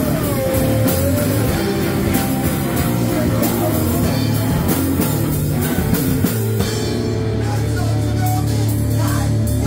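Live rock band playing loud: electric guitar, bass and a drum kit with cymbals. About two-thirds through, a low note is held under the drumming.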